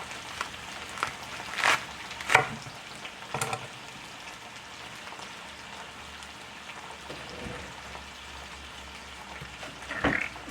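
Potatoes and onions frying in hot Crisco in a cast iron skillet: a steady sizzle. A few sharp knocks come in the first few seconds and again near the end.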